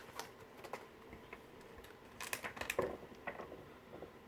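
Scattered light clicks and rustles of hands handling small plastic toy figures and their wrapping, with a quick cluster of clicks about halfway through.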